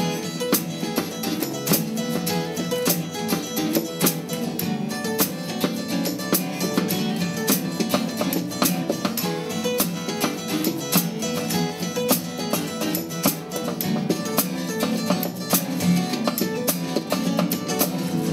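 A small acoustic band playing an instrumental intro: strummed acoustic guitars over a small drum kit keeping a steady beat on snare and cymbals.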